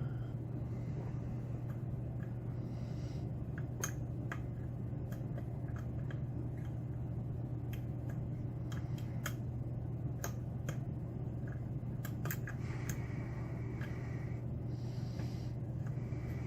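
Light, irregular metallic clicks and ticks of a dimple pick working the pins of a Mauer SKG dimple lock under tension, over a steady low hum.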